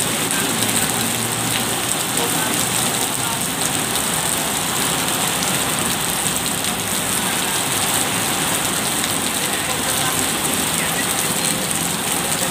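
Heavy rain pouring onto wet pavement: a steady, even hiss of rainfall.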